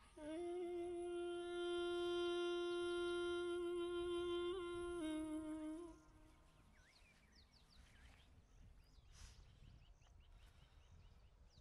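A woman's voice humming one long, steady note for about six seconds, wavering briefly near its end before it stops. After it, only faint background noise with a few faint high chirps.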